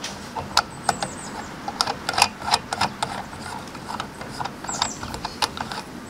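Hand working the pump plunger on a Coleman liquid-fuel lantern's tank to pressurize the fuel: a run of irregular small clicks, with a brief high squeak near the end.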